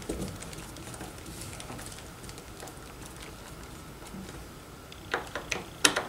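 Hand screwdriver turning screws into a plastic door stopper on a sliding-door rail: faint ticks and light scraping, then a few sharper clicks near the end.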